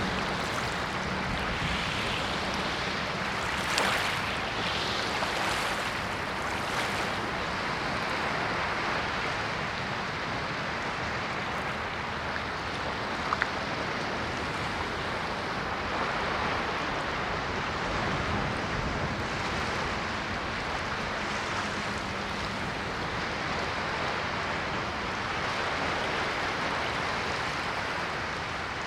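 Ocean surf: waves breaking and washing in as a continuous hiss that swells and eases, with a few sharper splashes about four to seven seconds in. A short click sounds about halfway through.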